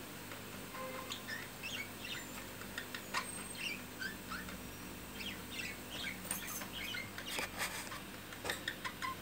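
Budgerigar chattering in quick, short chirps and warbles, with a few sharp clicks in between.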